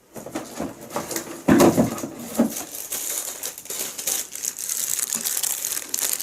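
Packaging crinkling and rustling as it is handled, with a few soft knocks about a second and a half in.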